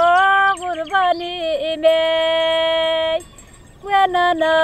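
A solo voice singing long held notes with ornamented bends and turns between them, breaking off briefly about three seconds in and then coming back.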